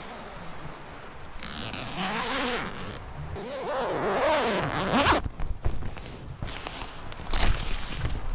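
Snugpak Ionosphere tent's door zipper being pulled open in two long strokes, its rasp rising and falling in pitch as the pull speeds up and slows.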